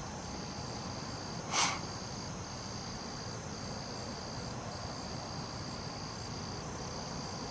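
Insects, likely crickets, trilling steadily in a high chorus, with short regular breaks in the trill. About a second and a half in there is one short, sharp sound.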